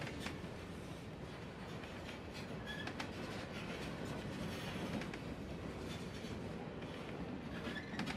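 Empty covered hopper cars of a freight train rolling past, steel wheels running on the rails with scattered clicks and two brief high-pitched squeaks.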